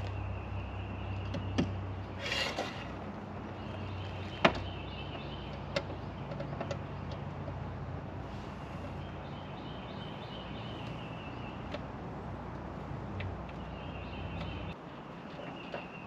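Hand screwdriver turning screws into a pool skimmer faceplate: scattered sharp clicks and several short high squeaking stretches as the screws turn, over a steady low hum that cuts off near the end.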